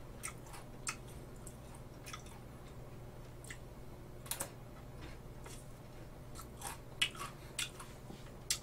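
Close-miked chewing of a Lotte White Cookie Pepero biscuit stick: scattered short, crisp crunches, a few louder ones a little past the middle and near the end.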